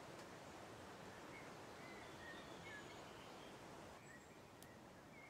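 Faint outdoor ambience: a low, steady hiss with small birds chirping softly, a run of short high chirps through the middle and a few more near the end. A single faint click sounds about four and a half seconds in.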